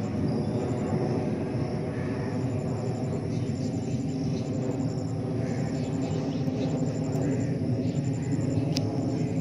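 Steady low rumble of a slowly moving vehicle, with faint, evenly repeating insect chirps high above it.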